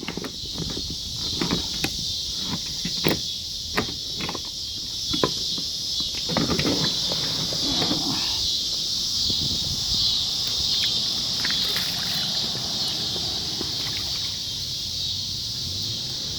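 A plastic hatch cover on a boat being worked loose and popped out: scattered knocks and clicks, then a squeaky rubbing about six to eight seconds in. Insects drone steadily throughout.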